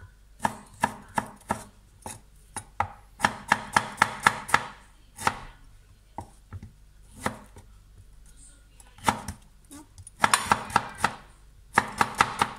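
A cleaver slicing a bamboo shoot on a wooden cutting board: the blade knocks sharply on the board, in runs of several quick strokes separated by short pauses.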